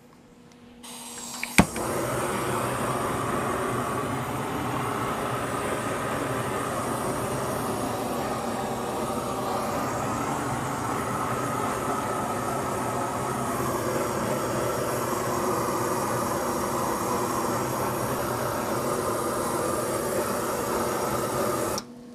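Handheld propane sear gun lit and held on the meat: a faint hiss, a sharp click as it lights, then a steady rushing jet flame that cuts off suddenly near the end.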